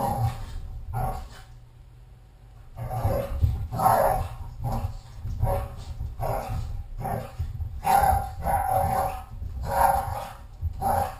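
Small dog barking over and over, about one or two barks a second, with a short pause a second or so in.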